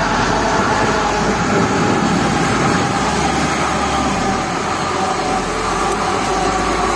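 An electric passenger train passing close by at speed, its wheels on the rails making a loud, steady rush with faint steady high tones above it.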